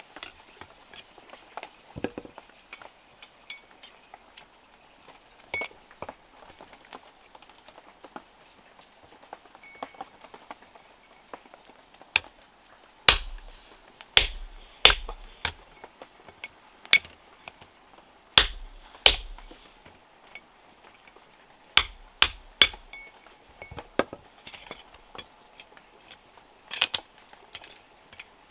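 Hand-tool work with a hammer on metal. Light taps and scrapes come first, then about ten loud, irregular clinking blows from about halfway through, several of them ringing briefly.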